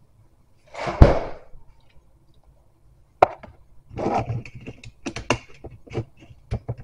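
Things being handled on a granite kitchen countertop right beside the microphone: a thump about a second in, then a sharp click and a quick run of light taps, knocks and rustles.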